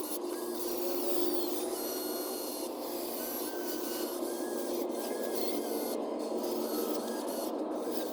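Steady whirring and rasping of small electric motors and gearboxes on RC construction machines at work, with short high whines that step up and down in pitch over it.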